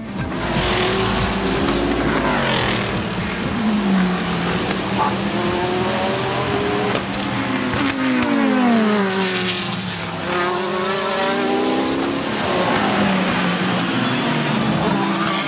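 Several sports prototype and GT race cars going through a corner one after another. Their engine notes overlap and sweep down and back up in pitch as each car passes.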